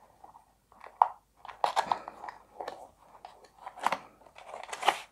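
A small cardboard box being opened by hand: scattered rustles, scrapes and clicks of the card flaps and inner tray, with a sharper scrape just before 4 seconds and a longer scraping slide near the end.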